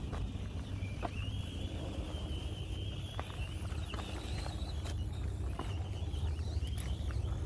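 Axial SCX24 Deadbolt mini RC crawler's small electric motor and gears whining, the pitch wavering with the throttle, with scattered clicks and knocks as it climbs over rocks. A low rumble of wind on the microphone runs underneath.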